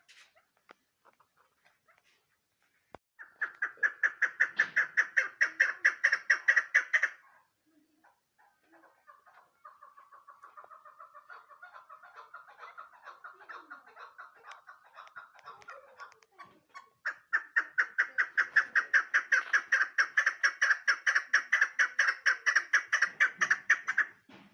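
Female chukar partridge calling: fast runs of clucking notes, about seven a second, in three bouts: a loud one about three seconds in, a quieter, lower-pitched one in the middle, and a long loud one that stops just before the end.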